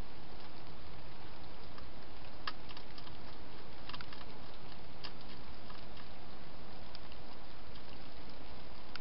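Wild hedgehog eating from a dish: scattered small crunching clicks, with a quick cluster of them about four seconds in, over a steady hiss.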